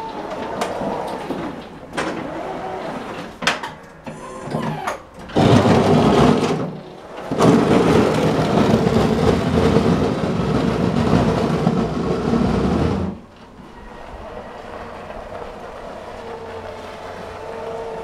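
Battery-powered garden tractor ploughing snow with its front blade. There are a few knocks in the first seconds, then a loud scraping rumble for several seconds. It drops off suddenly to quieter running with a steady whine as the tractor moves away.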